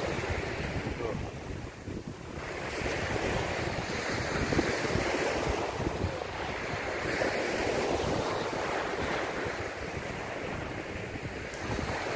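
Small surf breaking and washing up a sandy beach, with wind rumbling on the microphone. It eases briefly about two seconds in, then swells again.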